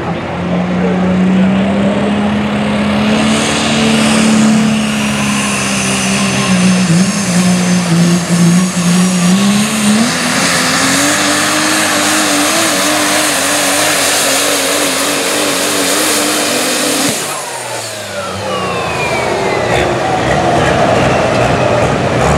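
Super stock diesel pulling truck's engine running flat out under load down the track. Its pitch steps up about halfway through and holds, then cuts off suddenly near the end, and a high whistle winds down over the following seconds.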